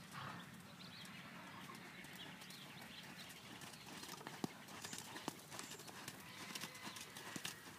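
Faint hoofbeats of a ridden horse moving over a sand arena, with a few sharper knocks in the second half.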